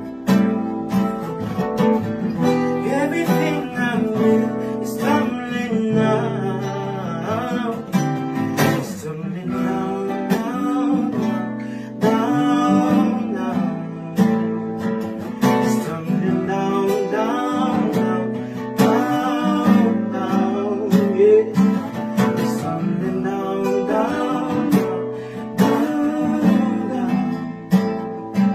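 Music: strummed acoustic guitar playing through an instrumental stretch of a song.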